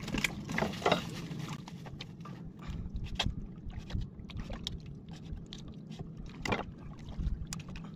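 Scattered knocks and taps aboard a small wooden fishing boat at sea, over a steady low hum, with the sharpest knocks about three seconds and six and a half seconds in.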